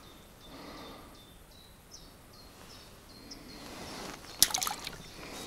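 Faint trickling and dripping of water, with short high chirps repeating about twice a second for the first three seconds. About four and a half seconds in comes a brief cluster of sharp clicks, the loudest sound here.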